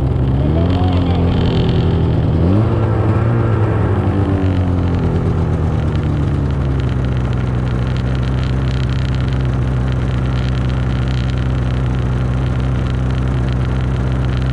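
Snowmobile engine under way, its pitch rising and shifting with the throttle over the first six seconds or so, then running at a steady pitch.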